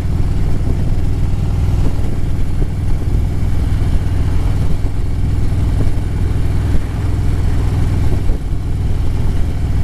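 Harley-Davidson Road Glide's V-twin engine running steadily as the motorcycle rides along, a continuous low engine note.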